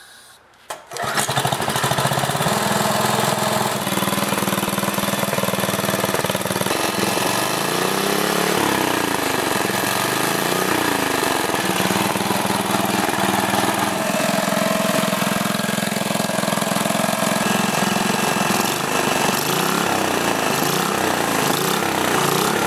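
Briggs & Stratton single-cylinder four-stroke small engine, air cleaner off, pull-started about a second in and catching at once, then running steadily at speed with a few brief wavers in pitch near the middle. It runs without trouble after its crankshaft swap.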